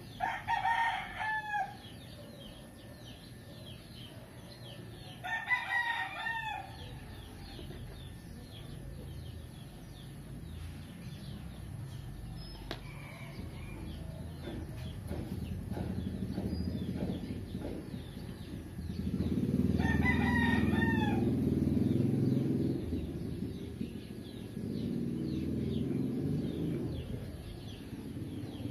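A rooster crowing three times, several seconds apart, over a low rumble that grows in the second half and is loudest about two-thirds of the way through.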